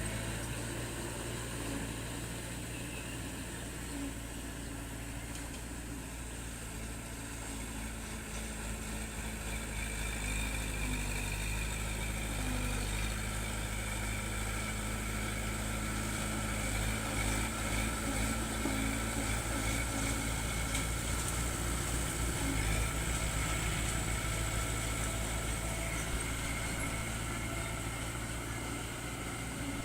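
Diesel engine of earthmoving machinery running steadily, growing louder about halfway through and easing off near the end.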